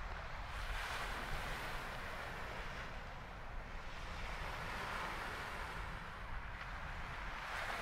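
Sea waves washing onto the shore in slow swells of hiss a few seconds apart, with wind rumbling on the microphone.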